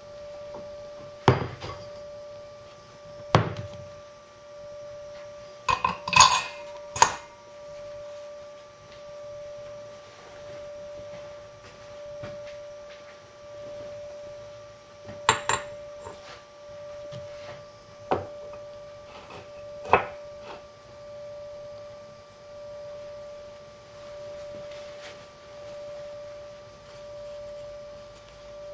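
Cartridge gas torch running with a steady tone that swells and fades about every two seconds, heating a new bearing race on a Land Rover Series front half shaft. Several sharp metal clinks come in the first twenty seconds as the steel parts are handled.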